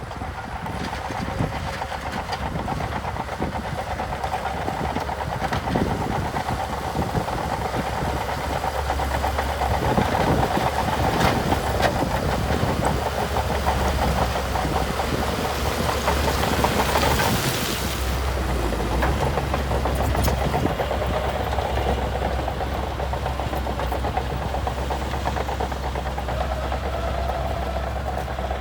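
Diesel engine of a heavy earthmoving machine running steadily under load, with a deep rumble. It grows louder in the middle, and a few sharp metallic knocks cut through.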